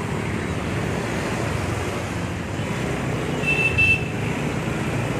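Steady city traffic noise heard from a moving motorbike: engines, tyres and wind from the surrounding cars and scooters. About three and a half seconds in come two short, high-pitched beeps.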